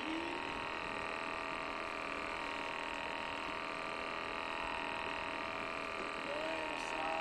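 A steady hum made of many held tones, unchanging throughout.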